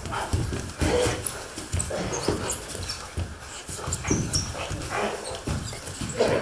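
Dog-like whimpering and yipping, short irregular sounds broken by soft low thumps.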